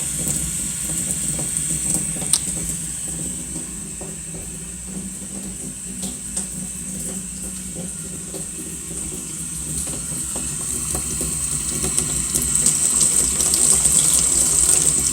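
Hot-water tap running into a sink, left on while the water is still cold so it can warm up. The flow grows louder over the last few seconds.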